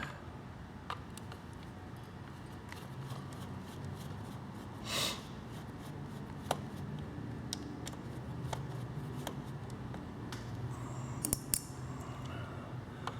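Scattered small clicks and taps of RC truck parts and small tools being handled during disassembly, with a short scrape about five seconds in, over a low steady hum.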